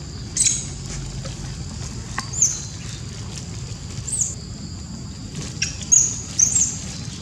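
Juvenile long-tailed macaques giving short, high-pitched squeaks, about five in all, the loudest two close together near the end.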